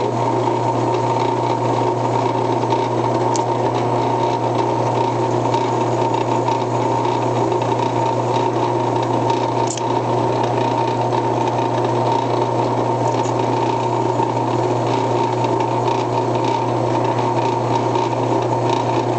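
Drill press motor running steadily, its spinning bit boring into a raw potato held up to it by hand.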